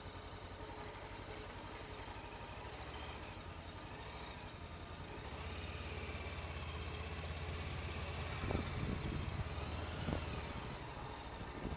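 Motorcycle engine running at low speed as the bike rolls along a rough gravel track, getting louder about five seconds in as it picks up a little, with a few thumps near the end.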